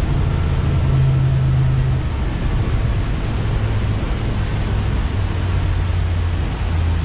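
Outboard engine running under way as it is throttled back, its low drone dropping in pitch in two steps as revs fall from about 4,100 to 2,600 rpm. A steady rush of wind and water runs underneath.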